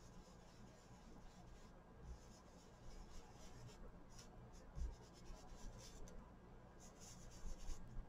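Faint soft brushing of a blending brush swirled over laser-cut paper, the bristles rubbing the paper in short patches. There are a couple of soft bumps against the table, the clearest about five seconds in.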